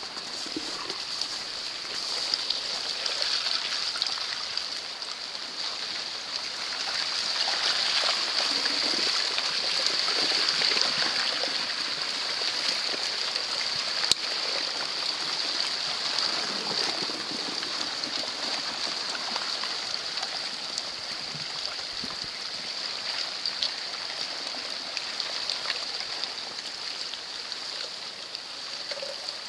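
River water running and trickling through a jam of broken ice floes, a steady hiss that swells for a few seconds early on. A single sharp click about halfway through.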